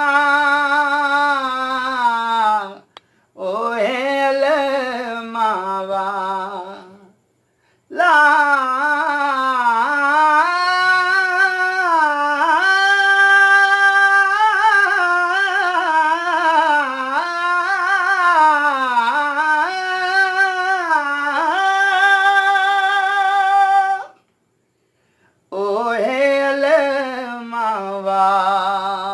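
A man singing a devotional qaseeda unaccompanied. He holds long notes with a wavering, ornamented melody, in phrases broken by a few short pauses.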